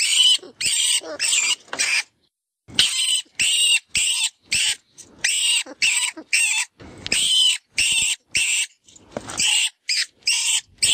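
FoxPro 'Vermin Pest Control' rat and rodent distress call, as used to lure in foxes: a rapid series of short, high-pitched squeals, about two or three a second, with a brief pause about two seconds in.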